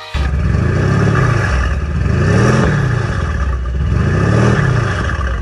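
Mercedes-AMG C63 S's tuned twin-turbo V8 starts up loud and is revved three times, each rev rising and falling back, kept below about 4,000 rpm while a hydrogen carbon cleaner feeds its intake.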